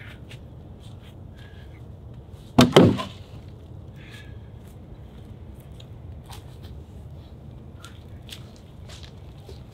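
A log of cordwood set down onto a woodpile: two heavy wooden knocks in quick succession about two and a half seconds in. Light footsteps on dry leaf litter before and after.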